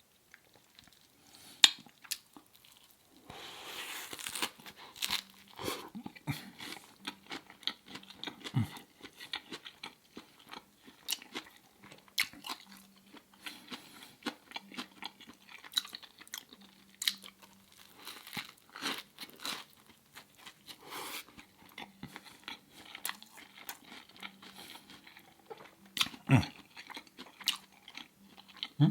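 Close-miked eating: crunchy bites and chewing, with many short wet clicks of the mouth, and a longer crunch a few seconds in.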